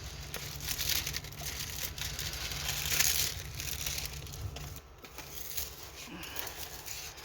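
A stiff diamond painting canvas being handled and flattened, its plastic-covered surface crinkling and crackling irregularly, loudest about three seconds in.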